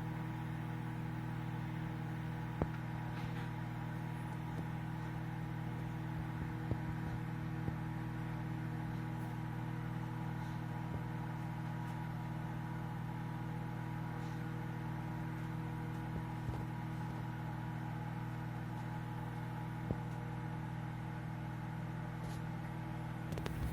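Microwave oven running with a steady, unchanging hum, with a few faint clicks.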